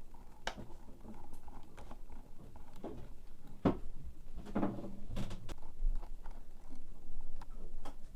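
Scattered light clicks and taps of small plastic laptop parts and tools being handled, with a few sharper knocks about half a second, three and a half and five seconds in.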